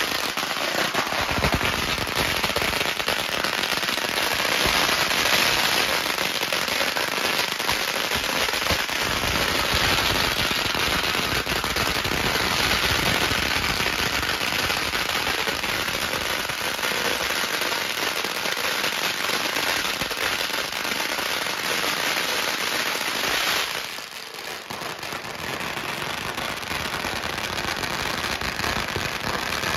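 A long string of firecrackers going off in a continuous, rapid crackle of bangs. About 24 seconds in the loud volley stops, and quieter crackling carries on.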